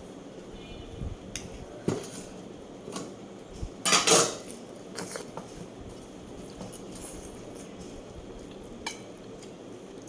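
Cutlery clinking and scraping against a dish a few separate times, the loudest cluster about four seconds in, with smaller clicks around two seconds and near the end.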